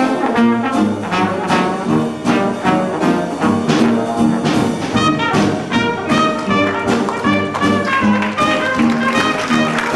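Dixieland jazz band playing live with a steady beat, a trombone carrying the lead; near the end a trumpet comes to the fore.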